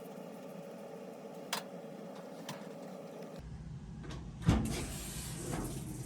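Lid of a GE top-load washer shut with one sharp knock about four and a half seconds in, after two faint clicks. A steady low hum runs under it.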